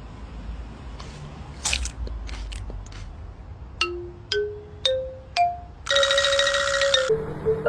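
Mallet-percussion sound effect: four single xylophone-like notes climbing in pitch, then a loud buzzy tone held for about a second. A few soft scuffing noises come before them over low background rumble.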